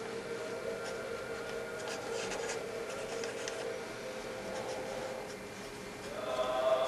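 Faint scratching and rustling of a small paper slip being handled and folded, over a low steady background drone.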